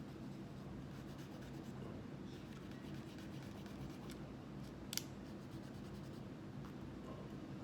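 Faint scratching and rubbing from hand-cleaning a pistol, with one sharp click about five seconds in, over a steady low hum.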